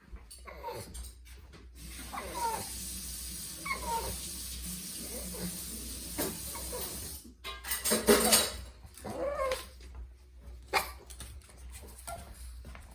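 A bird calling in a few short falling notes, with a louder run of calls about eight seconds in.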